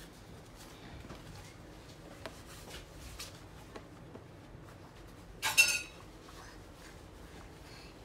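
Soft rustling and small clicks of a child's padded snowboard mittens being pulled on and handled, with one brief, sharp high-pitched sound about five and a half seconds in.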